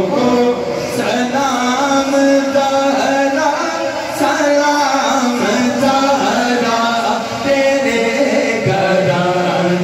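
A male reciter singing a naat (unaccompanied Urdu devotional poetry) into a microphone, with long melodic runs and held notes. A second male voice chants a steady low backing drone underneath, without instruments.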